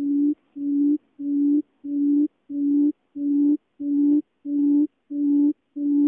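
Barred buttonquail's low hooting call, one steady booming note repeated evenly about three times every two seconds, each note swelling in and stopping short.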